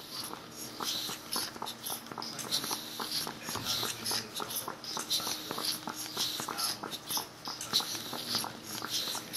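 LEGO pneumatic V8 engine running on compressed air: a quick, uneven stream of air puffs hissing from its valves and cylinders, mixed with the clicking of its plastic parts.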